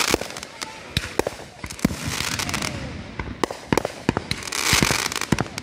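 Aerial fireworks launching and bursting overhead in a rapid, irregular series of sharp bangs. Three stretches of crackling hiss come near the start, about two seconds in and about five seconds in.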